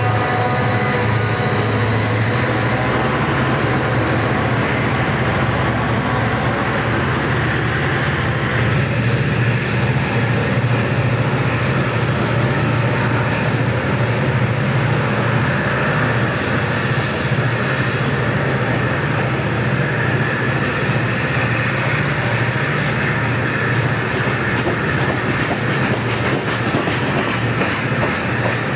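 Loaded Southern Pacific coal train passing close by: diesel locomotives running with a deep steady drone, and the hoppers' steel wheels clacking over the rail joints. It stays at one steady level throughout.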